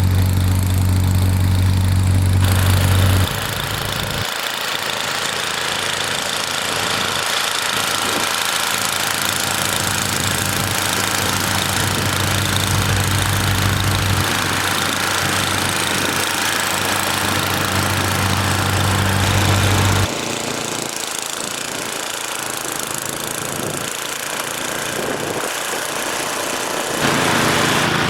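Gas snowblower's small engine running steadily under load, with broad noise over its engine tone. The sound shifts abruptly in level and tone a few times.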